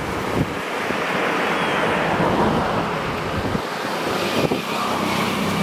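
A motor vehicle passing: a rush of noise that swells and then fades, with a steady engine hum coming in near the end.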